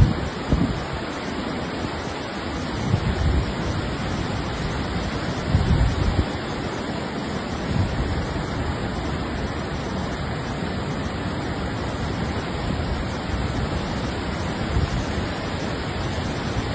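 A river in flood, its brown floodwater rushing and churning past bridge pillars as a steady noise. Wind buffets the microphone several times.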